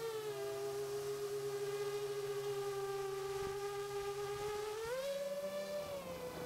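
7-inch FPV quadcopter's motors and propellers whining in flight. The pitch dips slightly as the throttle eases, climbs about five seconds in, then settles back.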